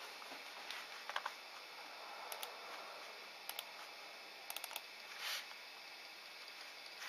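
Quiet background hiss with sparse faint clicks and ticks, some in quick runs of two to four, and a brief soft rustle about five seconds in.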